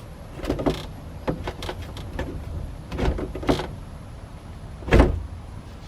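Cracked plastic pass-through cargo bucket being handled: a string of irregular clacks and knocks of loose, broken plastic, the loudest about five seconds in.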